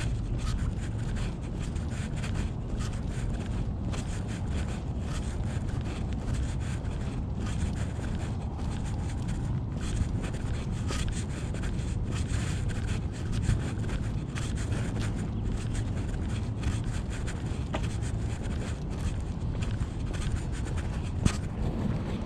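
Wind buffeting the microphone of a body-worn action camera, a steady low rumble, with irregular rubbing and scuffing from walking. One sharp click near the end.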